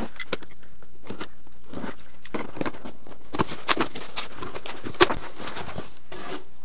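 Cardboard box flaps being opened and a foam packing sheet lifted out: scattered rustling, scraping and tapping, with one sharp knock about five seconds in.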